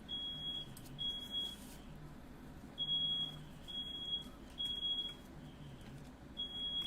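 Smoke alarm sounding high-pitched beeps in groups of three with a pause between groups, the temporal-three pattern that signals smoke or fire.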